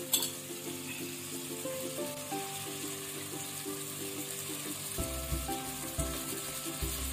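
Light background music with a stepping melody, over a steady sizzle of onion-tomato masala frying in a kadhai as soaked dried ribbon fish pieces are laid in. A short clink comes just after the start, and dull low knocks come in the second half.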